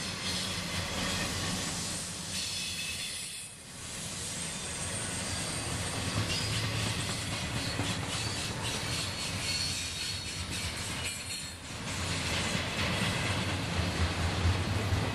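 Double-stack intermodal container cars rolling past, steel wheels running on the rail with a steady rumble and clatter and a thin high-pitched wheel squeal at times. The sound dips briefly twice.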